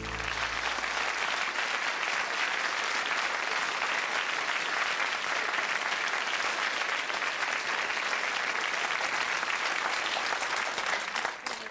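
Studio audience applauding at the end of a song: steady clapping that starts as the music stops and dies away near the end.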